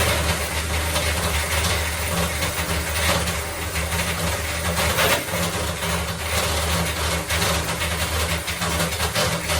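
Electric drill running a 22 mm spade bit, boring a hole into wood: a steady motor hum under a rough cutting noise.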